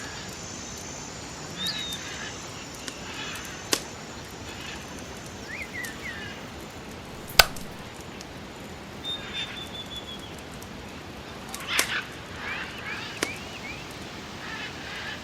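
Small birds chirping in short calls, with a few sharp, isolated knocks or cracks scattered among them; the loudest knock comes about halfway through.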